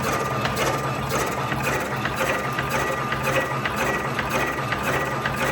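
TOMAC Hybrid electric cigarette-filling machine running: a steady motor hum under a quick, regular clicking of its mechanism.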